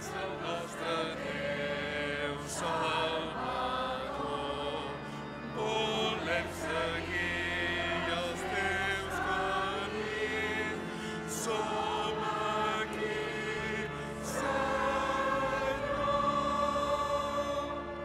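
Church choir singing a hymn, sustained sung phrases over a steady low accompaniment.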